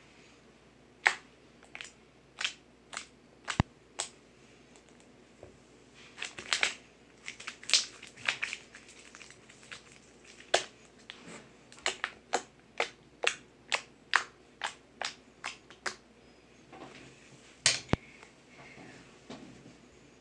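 Slime being squeezed and stretched by hand, giving sharp, separate clicking pops at an uneven pace, one or two a second and bunching up about halfway through.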